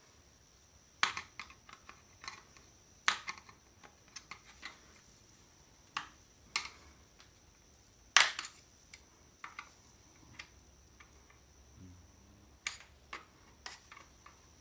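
Irregular clicks and knocks of metal parts and tools being handled while an old electronic unit is taken apart for scrap, the loudest knock about eight seconds in.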